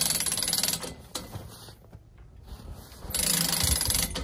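Hand-crank winch on a bale unroller being cranked in two spells of rapid clicking, with a pause between, as it winches a round bale up off the ground.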